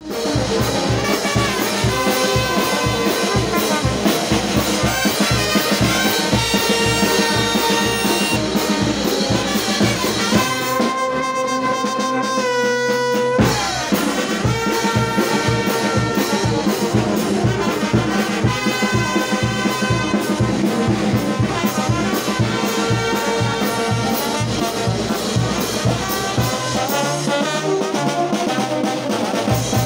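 Brass band playing live, trumpets and trombones over a steady bass-drum beat. About ten seconds in the drums drop out under a held brass chord, and the beat comes back about three seconds later.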